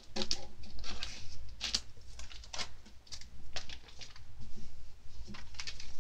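Scissors snipping the plastic packaging of a candy-making kit, giving irregular sharp clicks and crinkles several times a second.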